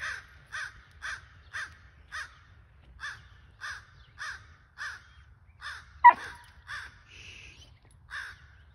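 A crow cawing over and over, short harsh caws at about two a second. A single sharp click about six seconds in is the loudest sound.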